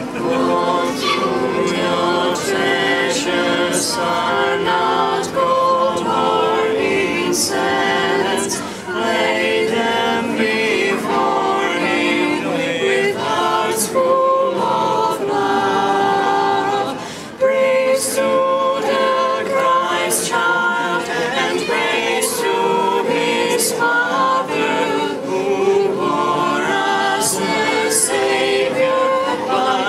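A small children's choir singing a song together in several voices, with short breaks between phrases about nine and seventeen seconds in.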